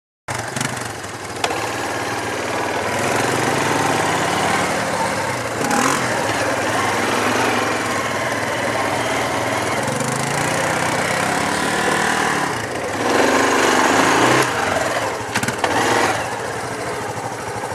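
Four-wheeler ATV engines running as the quads ride along a rough trail, the engine pitch rising and falling with the throttle and a louder stretch of revving about thirteen seconds in.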